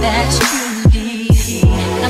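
Background music: the instrumental beat of an R&B song, with deep bass-drum hits that drop in pitch, about two a second, over a steady backing.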